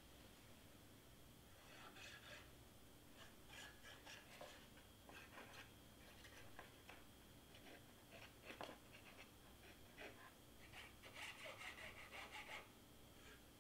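Faint, scattered rubbing and scraping of cardstock paper being handled, with a few soft taps, busiest near the end.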